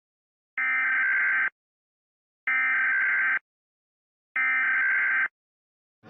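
Emergency Alert System SAME header: three identical bursts of warbling digital data tones, each just under a second long, separated by silence.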